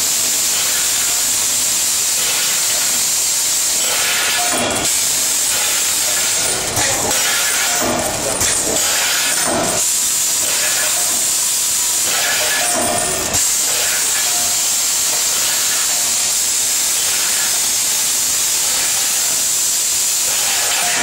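Vertical form-fill-seal packing machine running: a steady loud hiss with a few irregular knocks and clacks from the mechanism.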